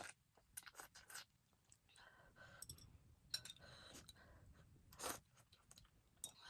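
Near silence with faint, scattered mouth clicks and soft eating sounds.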